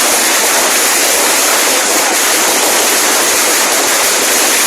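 A long string of firecrackers going off close by, the pops so rapid that they merge into one loud, unbroken crackle.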